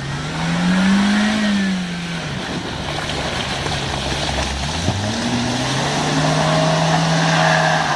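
Off-road 4x4's engine revving hard: it rises and falls about a second in, then climbs again about five seconds in and is held high, with a steady rushing noise over it, as the vehicle makes another attempt at an obstacle.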